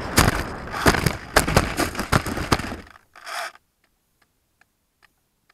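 Radio-controlled foam FPV plane landing on snow, heard from its onboard camera: several sharp knocks and scrapes as it touches down and skids, then the noise cuts off suddenly about three seconds in. After that, only faint ticks a few times a second remain.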